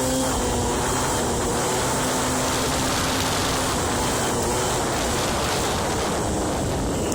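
Aprilia Ditech scooter's 50cc two-stroke Morini engine running at a fairly steady speed while riding, its crankshaft bearings freshly replaced, under heavy wind rush on the microphone.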